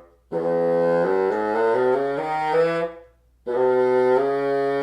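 Bassoon with a store-bought reed playing a scale in the low and middle register: a run of short stepwise notes, a brief break, then a long held note. The reed plays very flat, almost a half step flat on the tuner, with a very open tip.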